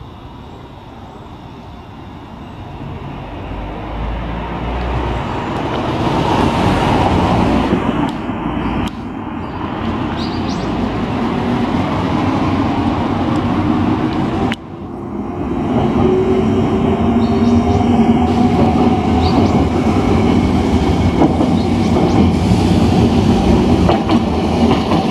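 Hankai Tramway's 1928-built Mo 161 streetcar approaching and running past close by, its wheels on the rails and its traction motors growing steadily louder. In the second half a motor whine rises slightly in pitch.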